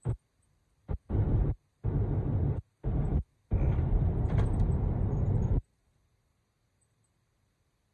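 Low rumbling road and wind noise from a moving car, heard in choppy blocks that cut in and out abruptly and stop about five and a half seconds in.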